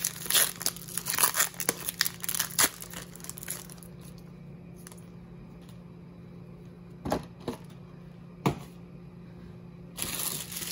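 Foil wrapper of an Upper Deck hockey card pack being torn open and crinkled, a dense crackling that lasts about three and a half seconds. After that it is quieter, with two soft clicks and a brief rustle near the end.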